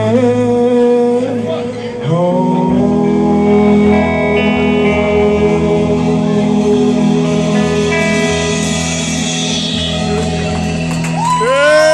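Live rock band with electric guitars and drums playing the close of a song. About two seconds in, the band strikes a chord that is held for a long time, with guitar notes ringing over it.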